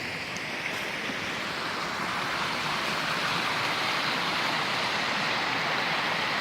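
Rushing water of a mountain waterfall, a steady hiss-like roar that grows louder over the first few seconds and then holds.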